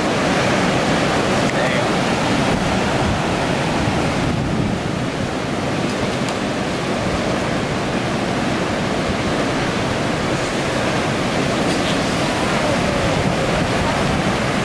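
Heavy ocean surf: large waves breaking and whitewater washing in, a loud, steady wash of noise.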